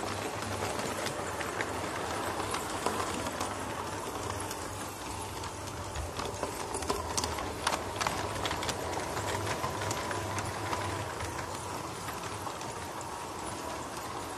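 LGB G-scale model of a U-class narrow-gauge locomotive running along the track: the electric motor and gearing whir steadily under a low hum, with scattered clicking and clatter from the wheels on the rails that is thickest about halfway through.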